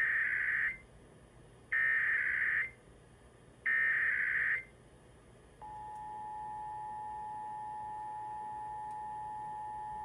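Emergency Alert System SAME header for a Required Monthly Test: three data bursts of about a second each, some two seconds apart, which encode the alert. About halfway through, the steady two-tone EAS attention signal (853 and 960 Hz) begins and holds.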